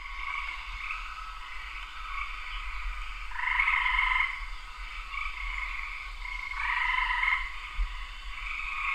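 A chorus of frogs trilling and calling together in a steady din, swelling louder twice, about three and a half seconds and seven seconds in.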